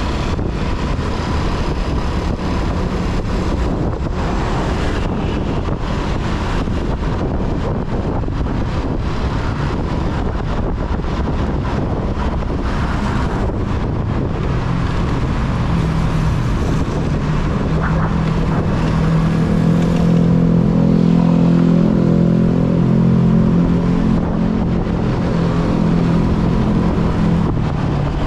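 Motorbike riding in city traffic: steady engine and road noise with wind on the camera microphone. From about twenty seconds in, a low steady engine hum grows louder for several seconds, then eases.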